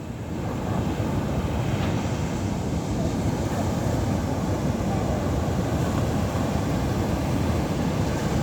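Heavy surf and wind buffeting the microphone: a steady low rushing noise that swells in the first second.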